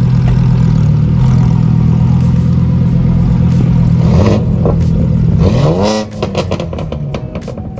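A car engine running loud and steady, revved briefly twice. After the second rev it drops away and a quick series of sharp pops or clicks follows.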